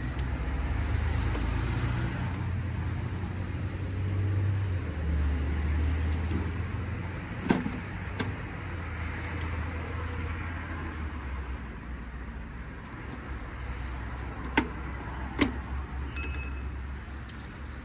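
Low rumble of a motor vehicle running nearby, swelling and fading. Four short sharp clicks and a brief rattle from parts and tools being handled during the reassembly.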